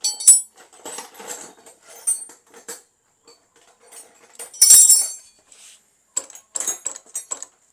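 Metal tools clinking and tapping against the front brake caliper of a motorcycle during brake bleeding: a run of short, irregular clinks, with one louder clatter lasting about half a second, about halfway through.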